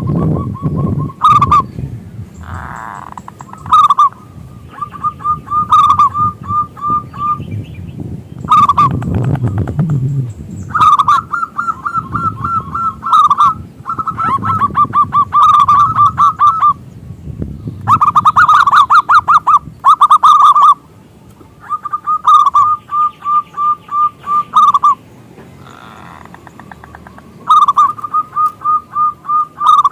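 Zebra dove (perkutut) calling: phrase after phrase of quick, evenly repeated coo notes, each phrase a second or two long with short pauses between.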